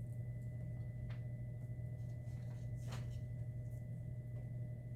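Quiet room tone dominated by a steady low electrical hum, with faint steady higher tones and a few faint soft clicks.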